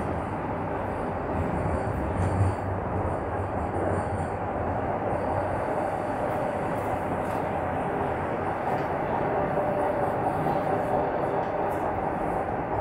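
Toronto Rocket subway train running through the tunnel, heard from inside the car: a steady rumble of wheels on rail and running gear, with faint ticks from the track.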